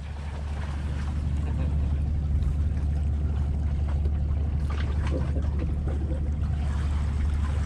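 Steady low rumble of wind buffeting an action camera's microphone, with a few faint handling sounds around the middle.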